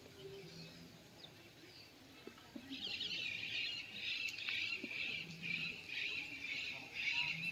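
Birds chirping in a dense, continuous chorus that starts about three seconds in; before that only faint outdoor background.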